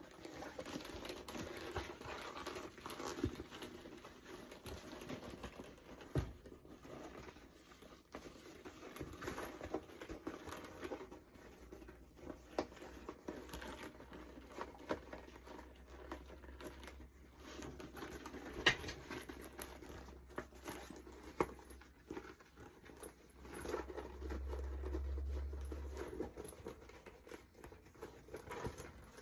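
Genuine leather bag being turned inside out by hand: the leather creaks and rustles with many scattered small clicks and crinkles. A low rumble lasts about two seconds near the end.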